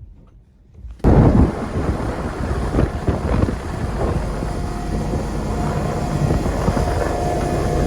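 Strong wind buffeting the microphone, a loud gusty rumble that starts suddenly about a second in. A faint steady whine joins it about halfway through.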